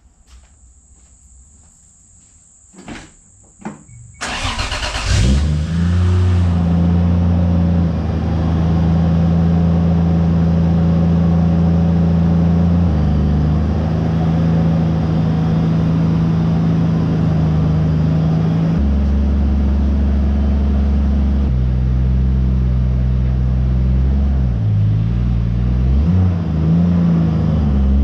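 MK3 Toyota Supra engine cranking and starting about four seconds in, after a couple of clicks, then running at a steady idle. The idle steps down in pitch a couple of times, and there are a few brief rises and falls in revs near the end.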